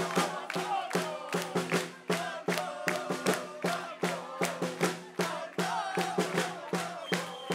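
Live folk-rock band playing: banjo and acoustic guitars over a fast, steady beat.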